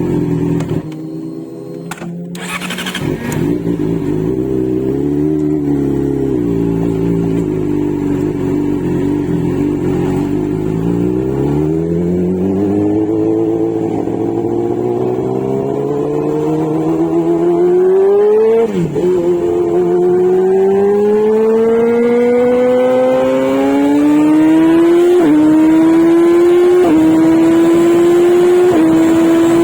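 Kawasaki Z900 inline-four motorcycle engine pulling through the gears while riding. Its note climbs steadily, then drops sharply at each upshift: once about two-thirds of the way in and three more times in quicker succession near the end.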